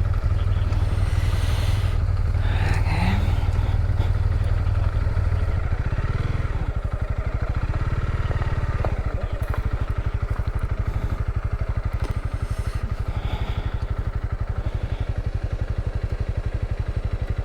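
Motorcycle engine running, a steady low pulsing exhaust beat whose note shifts about six seconds in.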